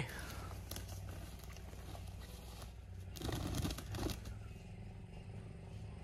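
Footsteps rustling and crunching through dry fallen leaves and brush, with a short louder spell of crackling about three seconds in, over a faint steady low hum.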